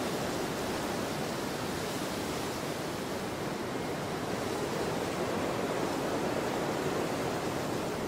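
Steady rushing wind, an even noise without gusts or tones, swelling slightly a few seconds in.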